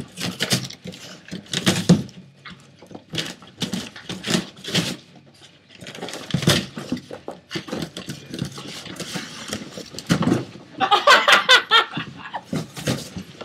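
Boston Terrier biting and ripping a cardboard box: irregular crunching and tearing of cardboard, with a louder run of high squeaky sounds about eleven seconds in.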